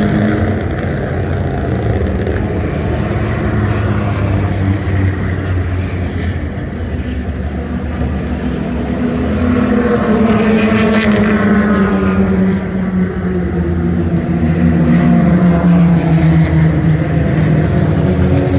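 Race car engines running on the circuit, several engine notes rising and falling in pitch as cars pass, with one climbing higher about halfway through.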